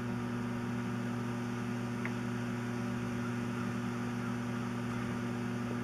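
Steady electrical mains hum, with a faint click about two seconds in.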